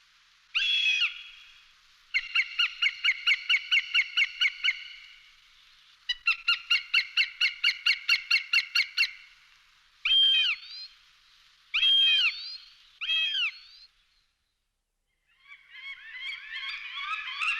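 Falcon calling: harsh single calls and fast runs of repeated 'kek-kek-kek' notes, about five a second. Near the end, after a brief silence, a denser, overlapping chirping starts.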